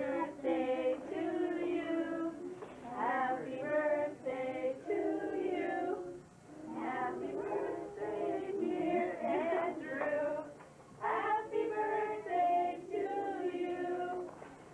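Women and children singing together, a song in four phrases with short breaths between them.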